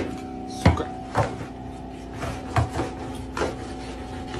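A flat mop and its metal handle knocking against the floor and the bottom of a fridge, about five sharp knocks spread unevenly, the first two loudest, over a steady electrical hum.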